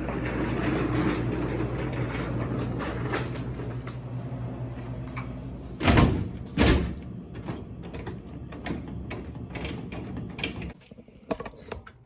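Steady low machine hum, then two loud metal clunks about halfway through followed by lighter clicks and rattles, as the metal cabinet of a laundromat coin change machine is opened and handled.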